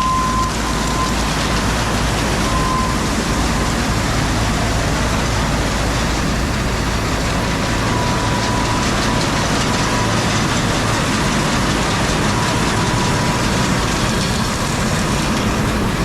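Seed-cleaning machinery running steadily, a loud, even mechanical noise with a faint high tone that comes and goes.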